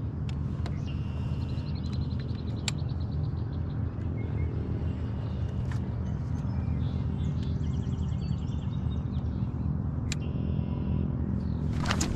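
Steady low engine drone with songbirds chirping and trilling over it, a few sharp clicks, and a brief louder burst of noise near the end.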